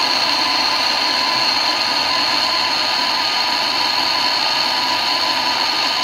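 Handheld gas torch burning on a low flame: a steady hiss with a thin high whistle, heating an aluminium refrigerator tube for aluminium soldering.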